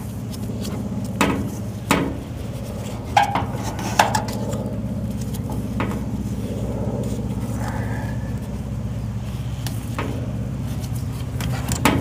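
Small clicks and taps of gloved hands working at an air-conditioner service valve, wrapping yellow gas Teflon tape around its threads: four sharp taps in the first four seconds and another near the end. They sit over a steady low mechanical hum.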